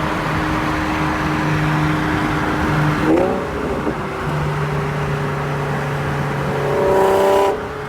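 Infiniti G37's V6 running through a Motordyne exhaust: a steady engine note that sweeps up in pitch about three seconds in. Near the end a higher engine note cuts off suddenly.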